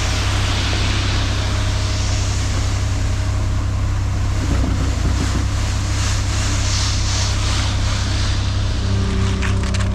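Heavy equipment engine running steadily with a constant low drone.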